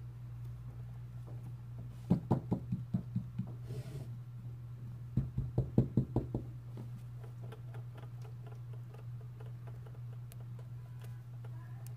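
Two quick runs of light knocks or taps, about six a second, over a steady low hum.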